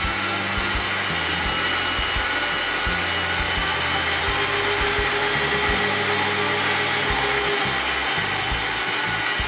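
Kenwood kMix stand mixer running steadily at speed, beating eggs and sugar in its steel bowl, with a steady motor whine.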